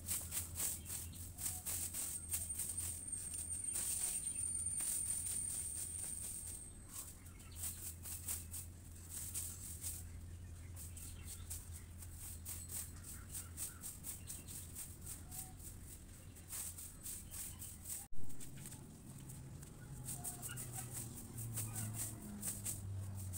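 Garden ambience while a plant bed is watered with a hose: dense spattering and rustling, a steady low hum, and a high thin whine during the first several seconds. A sharp click comes about eighteen seconds in, after which the hum is gone.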